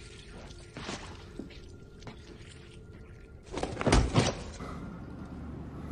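Mostly quiet room tone with a few faint knocks, then a dull thud with a short rustle about four seconds in, from a TV drama's soundtrack playing in the room.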